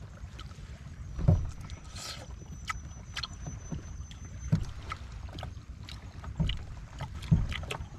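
Steady low rumble of wind and water around a floating raft, with a few soft knocks spread through.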